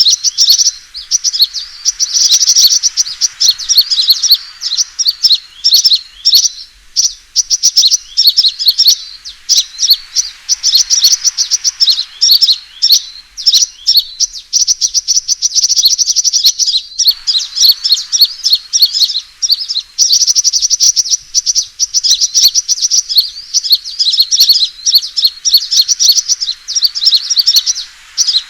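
Sunbird lure recording of fighting calls: rapid, high-pitched twittering chirps in long dense runs, broken briefly about 7 seconds and 17 seconds in. This is the aggressive call played to draw wild sunbirds in.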